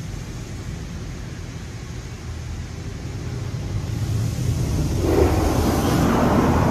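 WashWorld Razor Edge touch-free car wash heard from inside the car: a steady low rumble, then about five seconds in a louder rush of water spray on the car's body.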